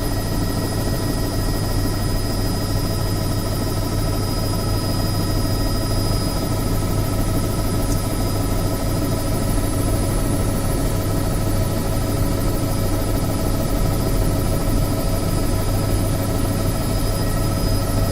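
Helicopter running during its start-up: a steady low drone with several constant high-pitched whines over it, getting slightly louder toward the end.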